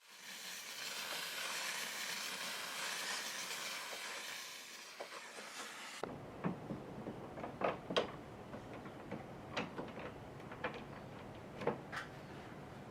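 Steam cleaner jet hissing for about five seconds, then fading. After an abrupt change, scattered light clicks and knocks.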